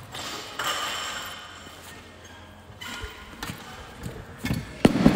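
Thuds of an athlete doing burpees on a rubber gym floor: a few light knocks about three seconds in, then a louder thud near the end.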